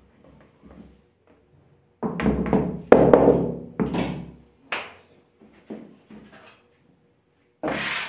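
Kitchen handling sounds while whole-wheat flour is measured out: a cluster of thuds and knocks starting about two seconds in and lasting a couple of seconds, then a few light clicks, and a rasping rub starting just before the end.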